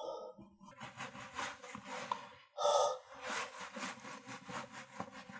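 Cloth rubbing on the glass front panel of an iMac in quick, repeated wiping strokes, about two or three a second, with one louder stroke near the middle.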